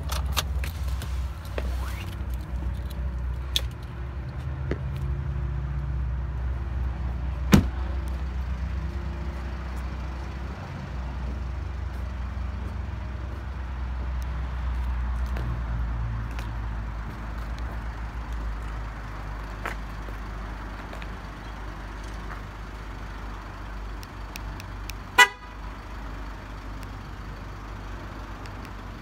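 A Ford F-150 pickup's horn gives one short chirp about 25 seconds in, over a low steady rumble. A sharp knock sounds about seven seconds in.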